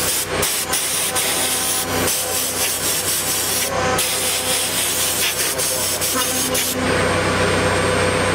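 Compressed-air blow gun hissing in bursts with short breaks, over the steady hum and whine of a CNC router milling steel; the air stops about seven seconds in, leaving the machine running on its own.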